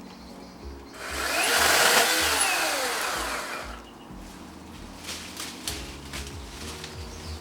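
Ryobi RSC1830 18V cordless chainsaw's electric motor and chain running in one burst of about three seconds, whining up in pitch and winding back down as it cuts a branch. Light clicks and rustles follow.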